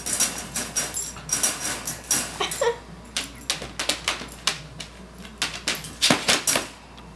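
Shetland sheepdog scrambling into a wire dog crate: a busy run of claw clicks, scrapes and rattles of the wire crate and its pan as the dog pushes in and turns around.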